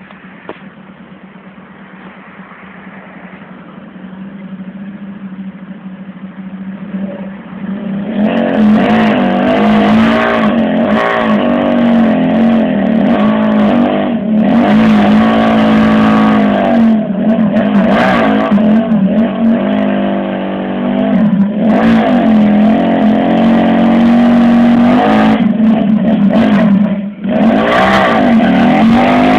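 Raptor Spyder 300 motorcycle engine running low for several seconds, then revved hard about eight seconds in and held at high revs, its pitch wavering up and down, for a burnout with the rear tyre spinning on the tarmac. The revs drop briefly near the end, then climb again.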